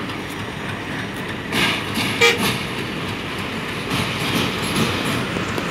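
Diesel-hauled passenger train running across a steel rail bridge, a steady noise that grows slightly louder toward the end. A short horn toot sounds a little over two seconds in.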